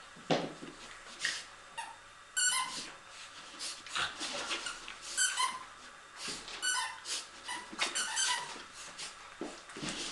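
Border terrier whining: several short, high-pitched whines, some sliding down in pitch. Brief scuffling noises from dogs at play come in between.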